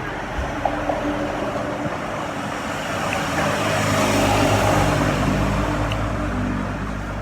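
A motor vehicle passes close by on the road: its engine and tyre noise swell to a peak about halfway through, then fade away.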